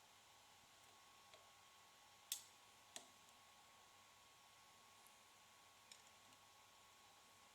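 A few faint clicks from vice grips clamped on a CPU's metal heat spreader as the lid is twisted during a delid. The two loudest come a little over two and three seconds in, with smaller ticks before and after, against near silence.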